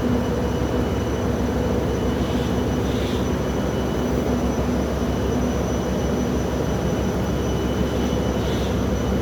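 Steady machinery drone of an industrial workshop, with a constant low hum and a faint high steady whine above it.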